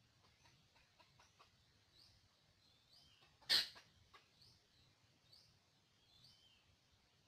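A single short, sharp bird call about three and a half seconds in, much louder than anything else, over faint short chirps that repeat every second or so in the background.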